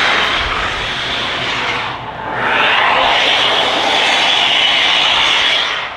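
BMW 3 Series coupe powersliding, its rear tyres spinning and squealing on the pavement with the engine held at high revs. It comes in two long stretches with a short dip about two seconds in, and drops off sharply near the end.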